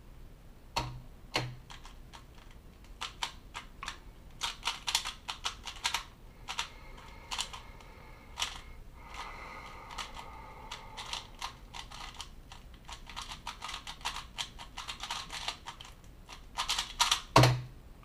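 3x3 Rubik's cube being turned fast in a speedsolve: a rapid run of plastic clicks and clacks as the layers snap round. There are two thumps about a second in and a louder cluster of knocks near the end.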